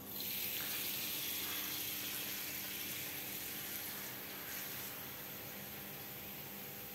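Water from a kitchen tap running and splashing into a metal wok as it fills. It comes on suddenly at the start and softens a little about four seconds in.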